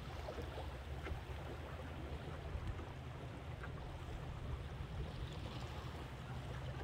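A boat under way: water rushing and splashing along the hull over a steady low drone.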